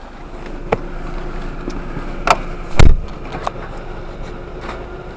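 A car's engine running as it is driven through a deep puddle, a steady low rumble with a few sharp knocks and one loud low thump about three seconds in.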